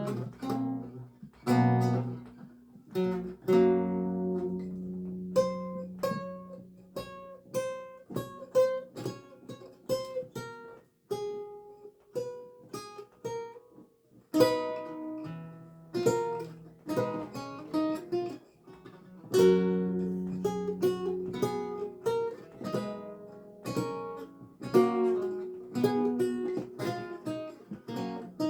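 Solo lute music: plucked notes ringing and fading, a melody over lower bass notes, with a couple of brief lulls midway.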